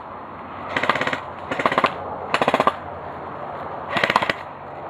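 JG G36C airsoft electric gun firing four short full-auto bursts, each a rapid rattle of shots lasting under half a second.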